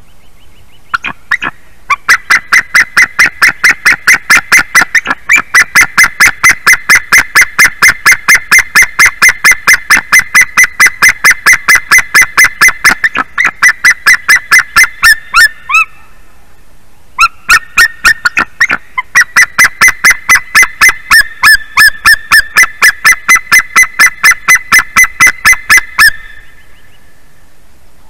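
White-tailed eagle calling loudly in long rapid yelping series, about four or five sharp calls a second, with one short break about halfway through. The calls are set off by a large bird flying past the nest.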